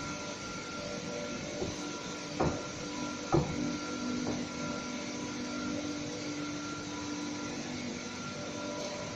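Oil refining plant machinery running with a steady hum and several held tones. About halfway through, four metal knocks sound, the second and third loudest.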